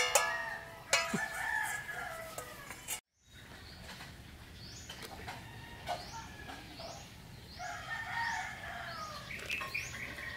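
A rooster crowing in the background, with a metal spoon clinking against a stainless steel mixing bowl in the first couple of seconds. After a brief dropout about three seconds in, a small bird chirps repeatedly, about twice a second, under another crow near the end.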